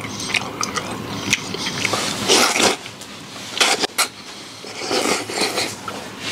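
A person slurping wide potato-starch noodles, several short hissing slurps a second or so apart, with chewing in between.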